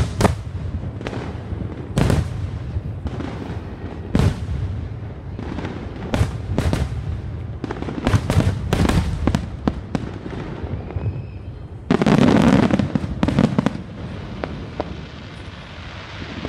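Aerial fireworks shells bursting overhead in a fast, irregular run of sharp bangs. About twelve seconds in there is a louder, denser stretch, and after it the bangs thin out.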